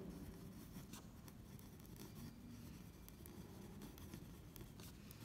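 Faint scratching of a pen writing by hand on ruled notebook paper, a run of short irregular strokes.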